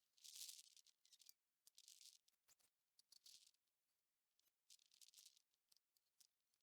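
Near silence: only faint high hiss that cuts in and out every fraction of a second.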